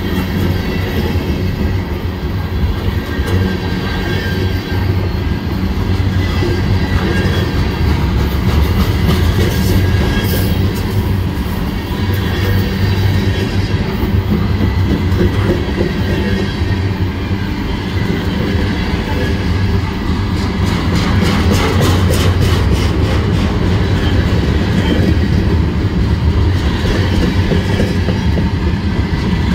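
Freight train rolling past, its cars giving a steady low rumble, with a run of rapid wheel clicks over the rail joints about twenty seconds in.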